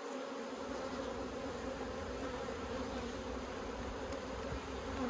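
Honey bees buzzing steadily around an open hive, a dense colony hum.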